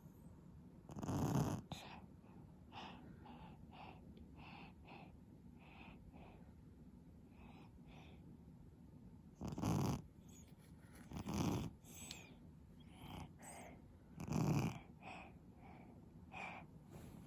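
An eight-month-old baby snoring in sleep: one loud snore about a second in, then after a pause of several seconds three more close together. Faint, short breath sounds come in between.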